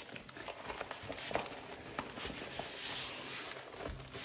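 Diamond-painting canvas and its plastic cover film rustling and crinkling as they are handled and lifted, with a few light knocks. The rustling is loudest a little past the middle.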